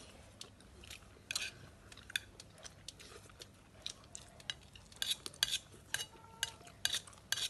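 Spoons clinking and scraping against bowls and a plate as people eat: irregular short clinks, coming thicker in the second half.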